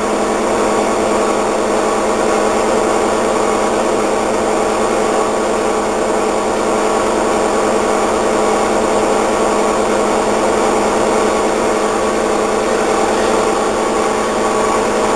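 Washing machine running its spin cycle: a loud, steady motor hum with several held tones.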